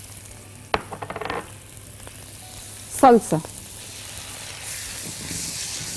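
Chopped onion, garlic and parsley sizzling in a little oil in a wok, with a single sharp tap just under a second in. The sizzle grows louder near the end.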